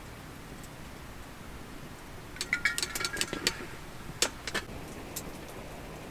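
Tableware clinking. A quick run of light clinks and taps with a short ring comes about two and a half seconds in, then a few single taps, over a steady low hiss.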